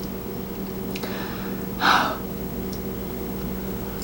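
A person's sharp, breathy gasp or exhale that builds for about a second and peaks about two seconds in, over a steady low hum.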